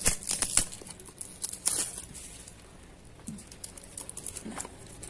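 A product box and its packaging being handled and pried open, with sharp scrapes and crinkles in the first two seconds, then quieter fiddling.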